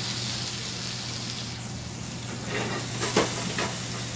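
Mushrooms, shallots and a fish fillet sizzling in smoking-hot cast iron pans on gas burners, a steady hiss over a low hum. About two and a half seconds in, a few clanks and scrapes as the cast iron pan is lifted and tossed on the burner grate.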